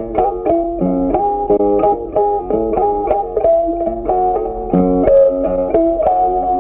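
Background music: a plucked guitar melody of quick, evenly spaced notes.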